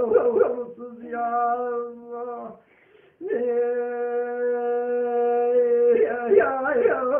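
A male voice singing Kurdish hore (hora), the slow, unaccompanied-style lament song. Ornamented, quickly turning phrases give way to a long held, wailing note about three seconds in, held for about three seconds, before the ornaments start again near the end, over a steady low drone. There is a short breath pause just before the long note.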